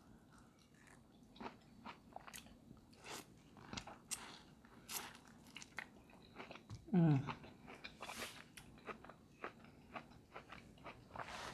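Close-up eating sounds of seafood: scattered crunches, clicks and chewing, with a brief voiced sound falling in pitch about seven seconds in.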